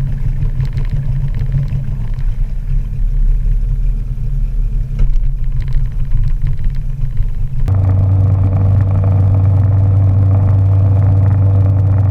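Road noise and engine rumble inside a moving vehicle's cabin. About two-thirds of the way through it changes abruptly to a steady low hum.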